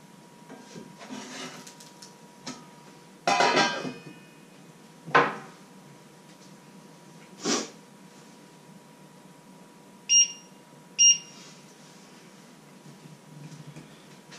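Metal cookware clanking as a pan lid is handled: a ringing clatter, then two sharper knocks about two seconds apart. Near the end come two short electronic beeps about a second apart.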